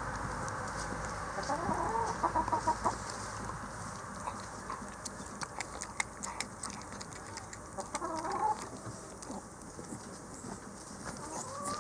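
A Shiba Inu eating raw brown bear meat: a run of sharp, wet chewing clicks in the middle. Short chirping animal calls come in groups near the start, about eight seconds in, and again at the end.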